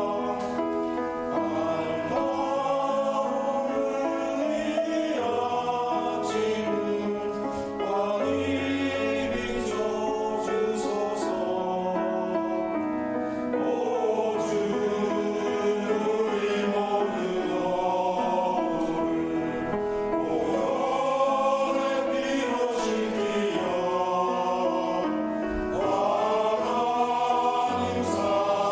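Choir singing a hymn, several voice parts moving together in held chords.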